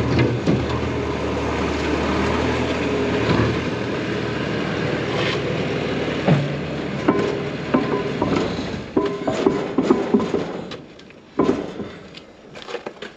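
An engine running steadily, then a series of sharp metal clanks and knocks. The engine sound falls away about eleven seconds in, leaving a few last knocks.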